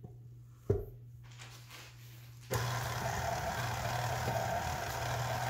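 A single sharp knock as the tilt-head of a KitchenAid Classic stand mixer is lowered onto its base, then about two and a half seconds in the mixer's motor switches on suddenly and runs steadily, beating oatmeal raisin cookie dough.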